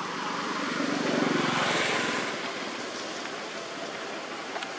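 A motor vehicle passing, its engine swelling about a second in and fading after two seconds, over a steady outdoor hiss; a single small click near the end.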